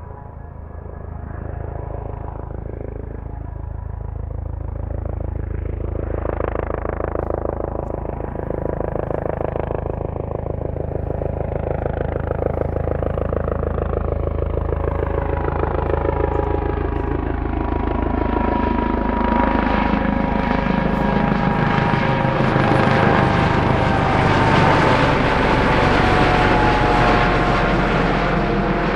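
Aircraft flying overhead, its engine noise growing steadily louder and more hissing as it comes closer, with slow sweeping rises and falls in pitch running through it. Near the end a steady whine stands out.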